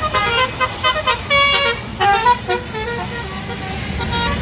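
Tour bus's 'telolet basuri' musical horn playing a rapid tune of short, changing horn notes for about two and a half seconds, then stopping, leaving steady traffic noise.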